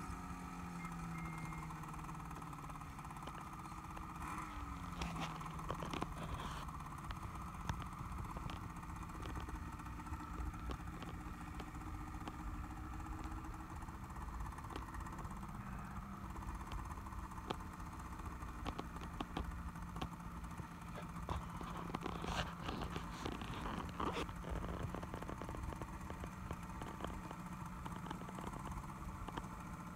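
Ski-Doo Summit 800 snowmobile's two-stroke engine running steadily under load as it climbs a snow slope. Its drone shifts slowly in pitch and is fairly faint, with scattered clicks.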